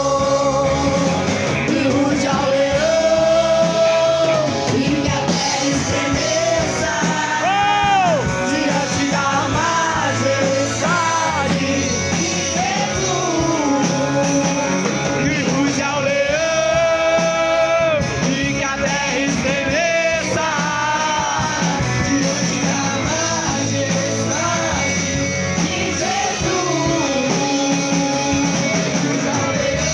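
Gospel song sung by a choir over a band, the voices holding long notes with vibrato.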